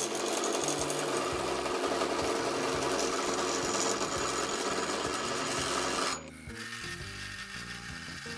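Round gouge cutting a spinning hickory blank on a wood lathe, a steady rough shaving noise as the square stock is roughed down to round; the cut stops about six seconds in.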